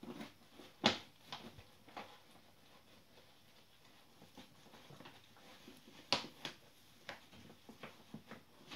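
Lhasa Apso rummaging head-first inside a nearly empty dog food bag: the bag crinkles and rustles in irregular sharp crackles, loudest about a second in and again about six seconds in.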